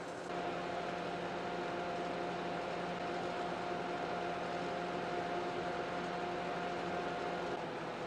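Steady machine hum: an even hiss with a high steady tone and lower steady tones beneath it, the high tone dropping out near the end.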